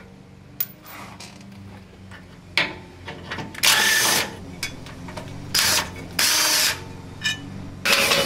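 Cordless power ratchet spinning out 12 mm bracket bolts in several short bursts, with clicks and clinks between them.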